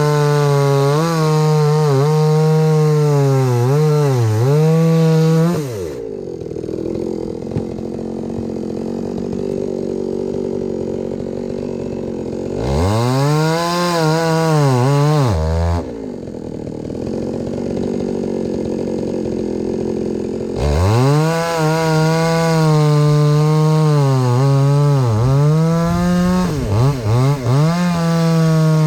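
Two-stroke chainsaw engine revving high with a wavering pitch. It drops back to a low idle twice, for several seconds each time, then is throttled up again.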